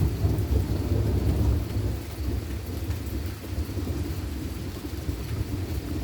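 Rolling thunder that breaks in suddenly, loudest for the first second and a half and then easing into a long low rumble, over steady rain.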